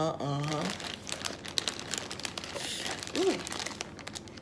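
Plastic zip-top freezer bag crinkling as it is held open and handled with gloved hands. A short hum of voice comes right at the start, and another brief vocal sound about three seconds in.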